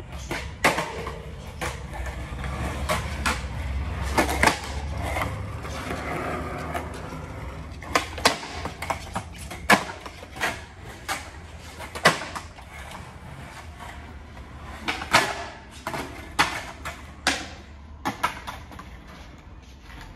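Skateboard wheels rolling on a concrete floor with a steady low rumble, broken by about a dozen sharp clacks as the board is popped and slapped down on the concrete. The rumble is strongest in the first six seconds and quieter afterwards.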